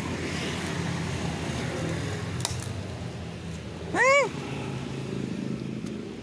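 A kitten's single frightened meow about four seconds in, rising and then falling in pitch, over a steady hum of traffic.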